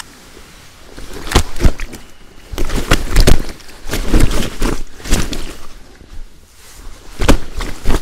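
A scaled carp thrashing in a deep carp unhooking mat, its body and tail slapping irregularly against the wet mat in several bursts of loud thumps.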